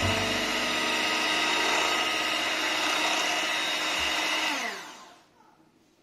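Electric hand mixer beating whipping cream in a glass bowl, its motor running with a steady whine. About four and a half seconds in it is switched off and winds down, falling in pitch, to near silence.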